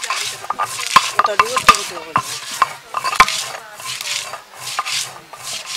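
Stone roller being pushed back and forth over a pitted stone grinding slab (sheel-nora), crushing dried red and green chillies: rhythmic rasping strokes about twice a second, with several sharp knocks of stone on stone in the first few seconds.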